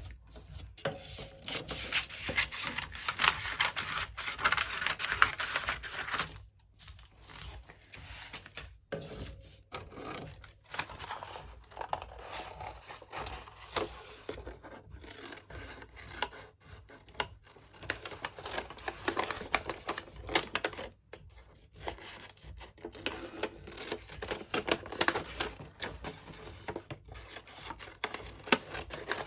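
Paper and thin cardboard being rubbed and handled: crackly scraping in runs, broken by a few short pauses.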